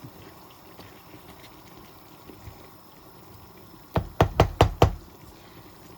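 A pan of bolognese sauce simmering with a faint bubbling hiss, then about five sharp knocks in quick succession near the end.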